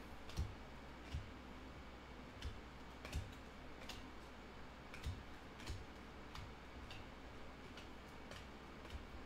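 Trading cards being handled and sorted by hand, with light irregular clicks and taps of card edges against each other and the wooden table, roughly one a second, over a faint steady low hum.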